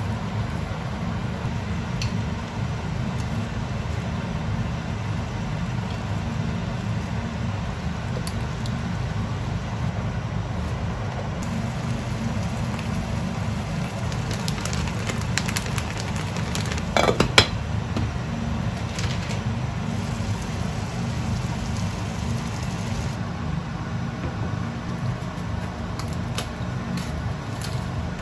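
Kitchen cooking sounds: a steady low rumble, with a quick run of clicks and taps of a utensil against a frying pan a little past halfway.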